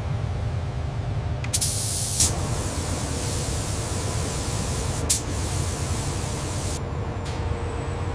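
Spray gun hissing over a steady low machine hum. The hiss grows stronger for most of a second about a second and a half in, and again briefly about five seconds in.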